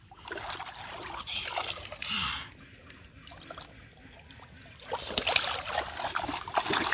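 Shallow muddy water splashing and sloshing as hands grab at a carp, in uneven bursts. It eases off in the middle, then louder splashing returns about five seconds in.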